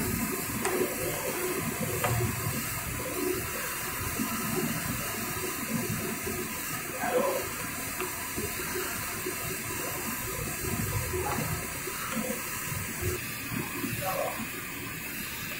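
Tamarind water sloshing and splashing in a large aluminium pot as a long slotted ladle stirs it round, in irregular strokes over a steady hiss.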